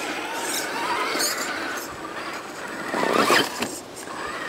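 Vanquish H10 Optic RC trail buggy's electric motor and gear drivetrain whining as it drives, the pitch wavering up and down with the throttle.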